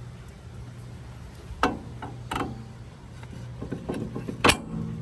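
Tools and parts knocking and clattering during work on a truck's upper ball joint: three separate sharp knocks, the loudest near the end, with a run of lighter clatter before it, over a steady low hum.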